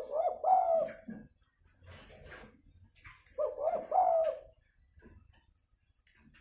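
Spotted dove (tekukur) giving its cooing call, two phrases about three seconds apart. It is the aggressive 'tarung' coo that trappers use as a lure to bring wild doves down.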